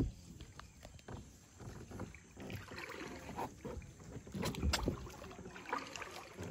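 Kayak paddling: the paddle blade dipping and swishing through the water in irregular strokes, with a sharp knock right at the start and scattered small clicks.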